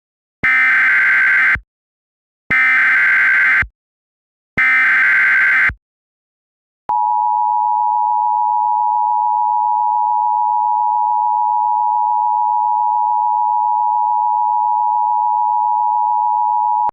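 Emergency Alert System broadcast: three buzzy digital data bursts (the SAME header), each about a second long, then after a short gap a long, steady, single-pitched attention tone.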